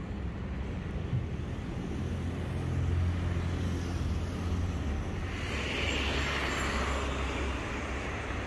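Road traffic: a steady low rumble of passing vehicles, with a vehicle's hiss swelling about five seconds in.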